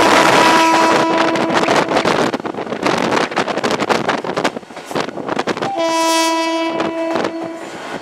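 Air horn of a GT22 diesel-electric locomotive sounding two long blasts: one ending about two seconds in, the second from about six seconds to near the end, as a warning for the level crossing ahead. Underneath, the wheels clatter steadily over the rails, with wind noise from the moving locomotive.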